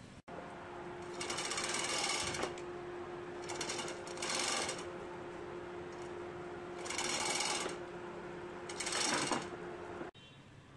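A power tool running in four short bursts of about a second each, with a steady low hum underneath, while bolts on the 2KD engine's timing-belt area are worked on.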